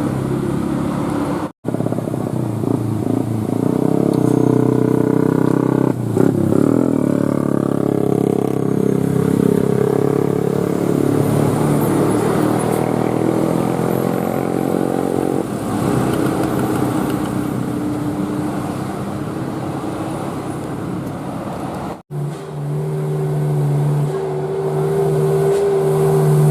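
A bus sounding, with several steady pitched tones held for seconds at a time, likely from a bus's engine or its telolet horns. The sound drops out briefly twice, about a second and a half in and again about 22 seconds in.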